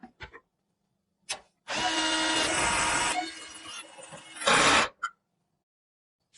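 Small handheld power tool motor whirring for about three seconds, loudest for the first second and a half, then a short loud burst near the end. A few small clicks come before and after.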